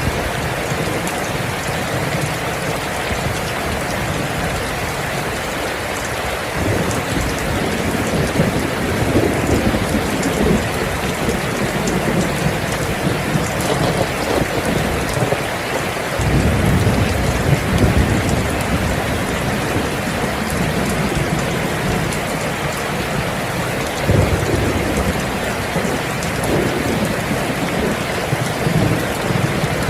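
Steady rain falling, with thunder rumbling in low and long about three times.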